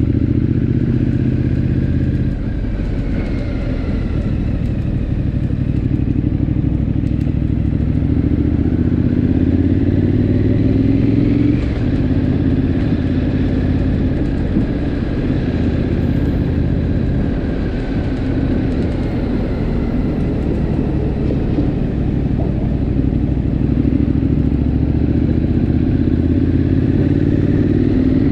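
Triumph Scrambler 900's parallel-twin engine heard from the saddle while riding at speed, its note climbing under acceleration, with a gear change about halfway through, then settling and climbing again near the end.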